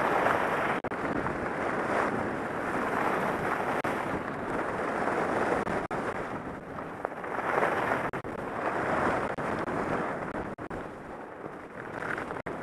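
Wind rushing over the camera microphone together with skis hissing and scraping on packed groomed snow during a downhill run, swelling and easing every couple of seconds.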